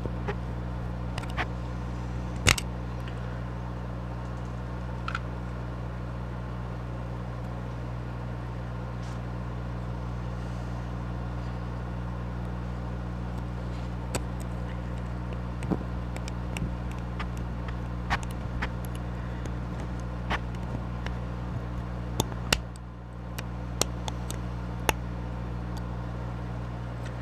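Small scattered clicks and taps of tiny screws, a small screwdriver and plastic parts being handled while a model locomotive is put back together, over a steady low background hum.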